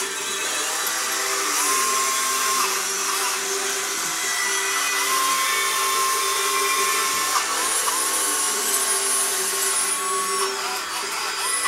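Small electric motors and gearing of a radio-controlled Doepke toy dragline whining as it works its bucket and swings its boom. The whine changes pitch and steps on and off several times as different motions start and stop.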